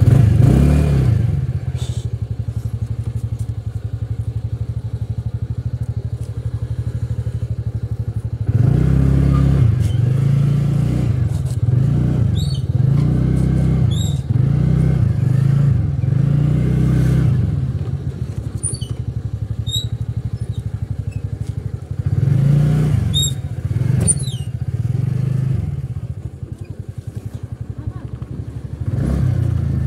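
Scooter engine idling just after starting. About eight seconds in it pulls away, and the engine note then rises and falls over and over as the throttle is opened and eased.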